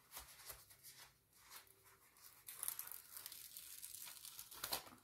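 Faint paper rustling and crinkling as a sticker sheet is handled and a sticker peeled from its backing, growing busier in the second half with a sharper rustle near the end.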